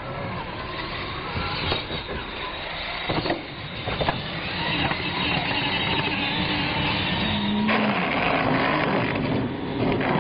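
Radio-controlled monster trucks racing on concrete: their motors and drivetrains whine over tyre noise. The sound grows louder about halfway through and stays up, with a few sharp clicks early on.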